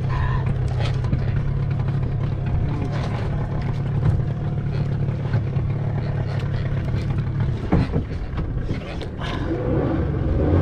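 A small fishing boat's engine running steadily at low speed, a low hum whose note shifts about eight seconds in, with scattered light knocks over it.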